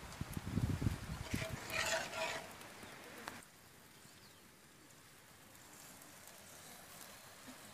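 Rustling and irregular bumps at the microphone, then an abrupt drop about three and a half seconds in to a faint, steady outdoor background.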